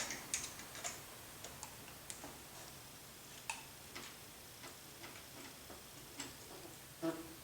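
Scattered light clicks and taps from small tools and parts being handled on an RC helicopter during assembly. They come irregularly, a few seconds apart, and are faint.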